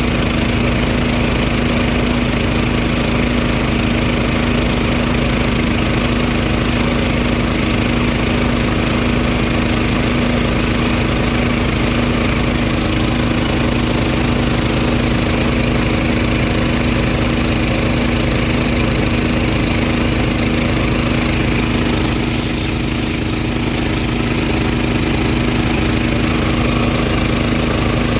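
Small gasoline engine of an engine-driven air compressor running steadily just after starting. About three-quarters of the way through, a brief high-pitched noise comes over it.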